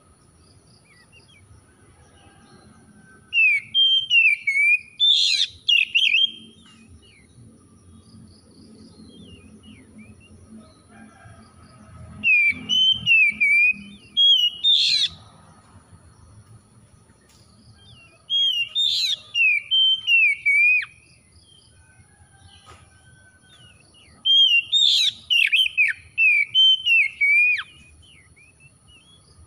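Oriental magpie-robin singing: four phrases of rapid, varied whistled song, each about three seconds long, several seconds apart.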